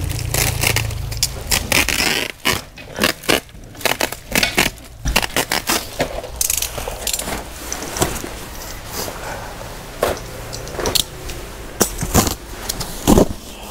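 Woven plastic sack being cut and torn open off a cardboard-sided bale: rustling and crackling with many irregular sharp crinkles and scrapes.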